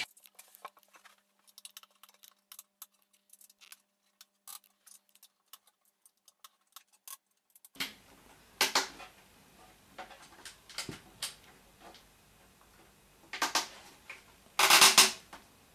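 Small, irregular clicks and ticks as a screw is tightened into a Dobsonian telescope's base. After a cut come a few sharper knocks and taps as hands handle the base's round top board, the loudest near the end.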